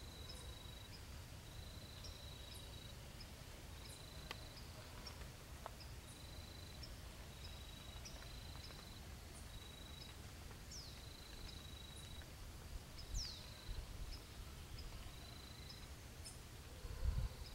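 Quiet forest ambience with an insect's high, even chirp repeated about once a second. Two brief falling whistles come a little past the middle, and a low rumble rises near the end.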